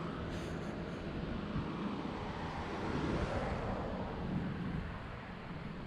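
Motor vehicle driving along a road: a steady engine hum with road and wind noise.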